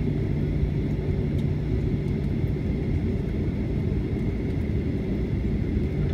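Steady low rumble inside the cabin of a Boeing 737-800 taxiing after landing: its CFM56-7B engines at idle and the airliner rolling along the taxiway, with a steady low hum and a faint high whine.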